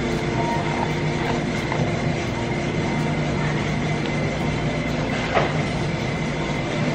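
Steady mechanical drone of food court room noise: a low hum with a faint high whine that holds level throughout, and a brief faint sound about five seconds in.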